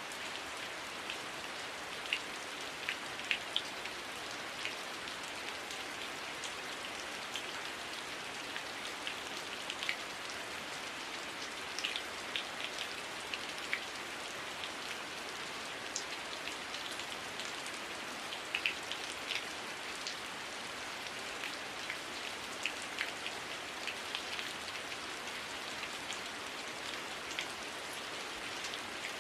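Heavy rain falling steadily, with many individual drops ticking sharply here and there over the constant hiss.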